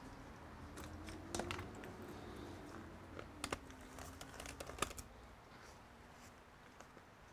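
Light clicks and taps of laptop casing parts being handled during disassembly, with a few sharper clicks between about one and five seconds in.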